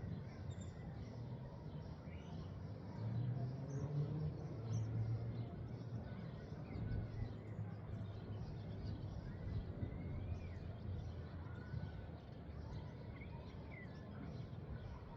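Wind blowing, with a low rumble that swells from about three seconds in, and a few faint high chirps over it.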